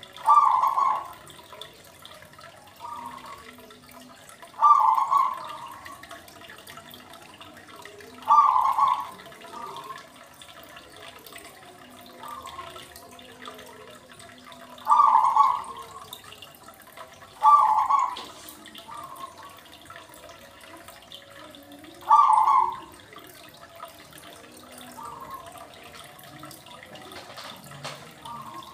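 Water trickling and splashing steadily. Every three to seven seconds a short louder sound breaks in, six times in all, each followed about a second later by a fainter repeat.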